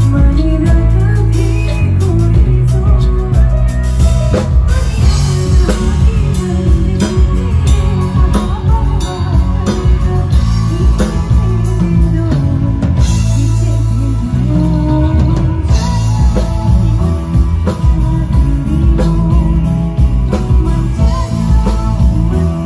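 Live band amplified through a PA: a woman singing into a handheld microphone over electric guitar, keyboard and drum kit.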